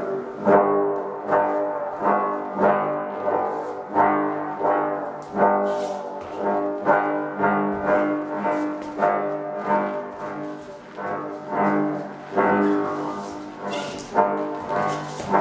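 A run of short brass-like horn notes at shifting pitches, each starting sharply, about three every two seconds.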